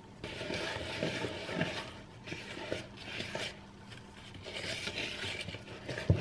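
Wooden spoon stirring thick carrot cake batter in a plastic bowl, scraping and rubbing in three spells of strokes with short pauses between, and a soft knock near the end.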